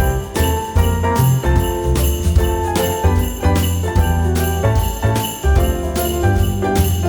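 Background music with jingle bells shaking on a steady beat over a bass line.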